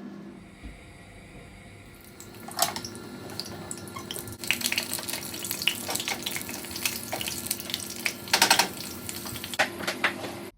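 Water running from a tap into a sink, building up a few seconds in and running steadily, with a few sharp knocks and clinks.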